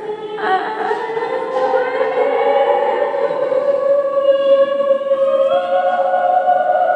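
Layered sustained sung tones from a sound installation: several voices hold long overlapping notes, one coming in about half a second in and another stepping up in pitch near the end.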